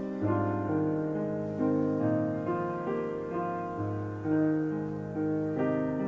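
Piano music: slow notes, a new one about every half second, each ringing on and overlapping the next.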